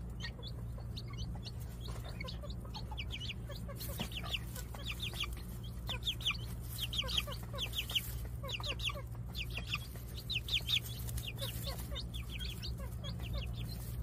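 Newly hatched chicks peeping: short, high, downward-sliding cheeps in quick runs of several, repeating all through, over a steady low hum.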